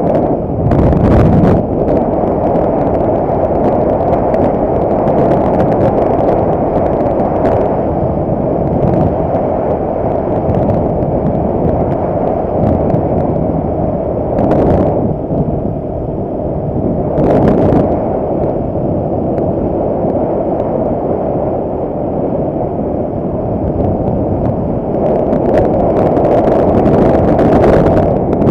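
Wind buffeting the microphone of a camera on a Suzuki Belang motorcycle riding at speed, with the motorcycle's engine and road noise running underneath. It rushes steadily, with a few louder gusts about a second in and twice in the middle.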